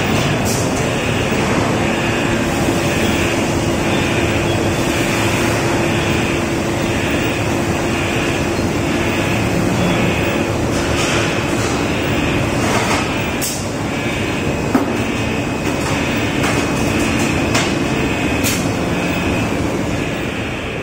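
Steady mechanical drone of an injection moulding machine running with its gantry take-out robot, a constant hum with a few short sharp clicks as the robot cycles.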